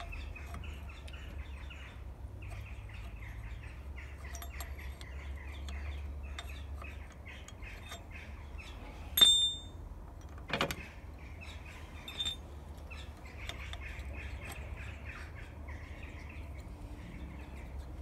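Small birds chirping and twittering without a break. Over them come sharp metal clinks of a screwdriver working against the steel parts of a tractor lift-arm hook. The loudest is a ringing clink about nine seconds in, followed by a knock a second and a half later and a lighter clink about two seconds after that.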